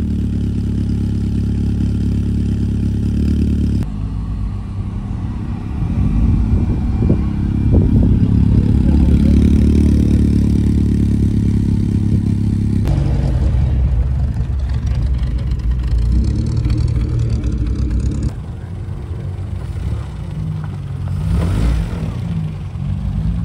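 Classic car engines running, louder and uneven through the middle with some revving. The sound changes abruptly a few times where the clips are cut together.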